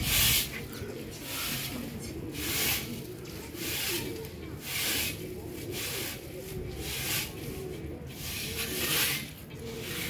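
Handfuls of grain flung from a tray into the air, showering down in a short hissing patter about seven times, every second or two, to call a pigeon flock down.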